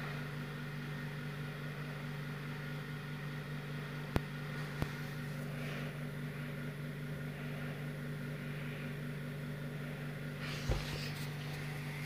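Hampton Bay Callaway ceiling fan running on low speed with a steady motor hum. Two brief clicks about four and five seconds in, and a few handling knocks near the end.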